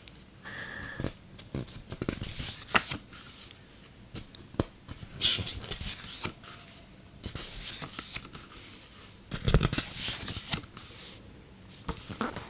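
Sheets of paper and a book handled close to the microphone: rustling and scratching with scattered sharp clicks, and a louder thump about three-quarters through.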